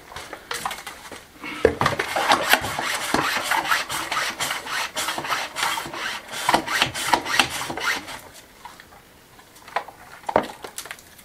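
Irregular scraping and rubbing against rough stonework, dense for about eight seconds and then easing off, with a couple of sharp knocks near the end.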